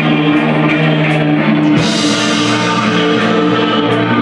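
Live ambient shoegaze band playing: sustained, effects-laden electric guitar chords ring on, moving to a new chord just under two seconds in with a brief bright wash.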